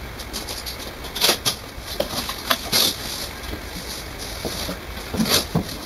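Cardboard flaps of a printer's shipping box being pulled open by hand: several short scrapes and rustles of cardboard rubbing on cardboard.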